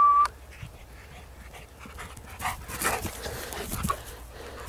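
A single steady whistle note cuts off just after the start, followed by a large husky-type dog panting as it runs through grass and brush.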